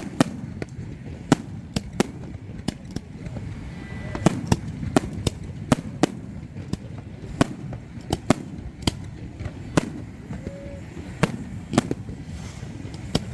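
Fireworks exploding overhead in an irregular string of sharp bangs, often two or more a second, over the steady murmur of a crowd.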